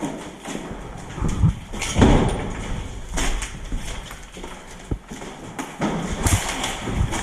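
Footsteps and scuffs on a hard, debris-strewn floor, with irregular knocks and thuds scattered through.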